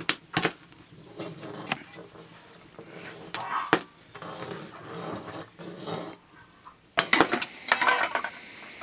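A metal ladle scraping and clinking in a wok, with scattered knocks, then a louder run of metal pots and lids clattering about seven seconds in.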